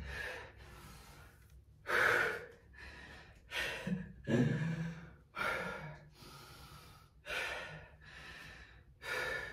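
A person breathing hard from the exertion of a dumbbell exercise: about six loud, separate breaths, one every second or two.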